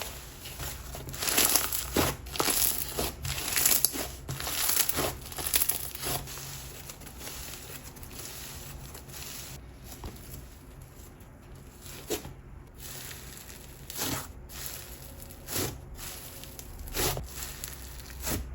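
Black slime with Snow Fizz crunch beads being squeezed and stretched by hand, crackling and fizzing. Dense, continuous crackling for the first few seconds, then single crackles a second or two apart.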